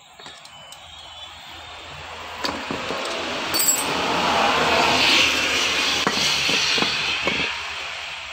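Metal parts of a disassembled Isuzu Panther starter motor clinking and knocking a few times as they are handled, under a rushing noise that builds to a peak about halfway through and then fades.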